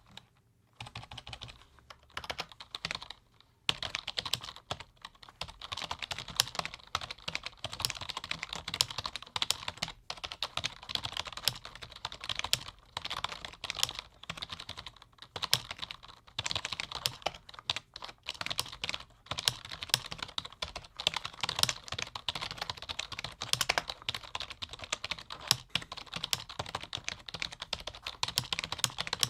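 Continuous fast typing on a low-noise computer keyboard: a dense patter of key clicks, with a short pause about three seconds in.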